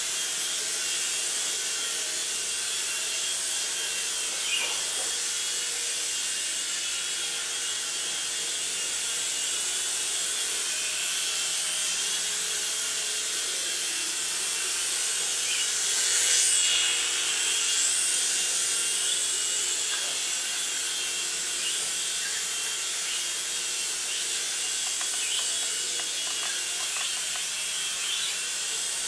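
Small RC toy helicopter's electric motors and coaxial rotors whirring steadily in flight, a high-pitched whine that grows louder for a couple of seconds about halfway through.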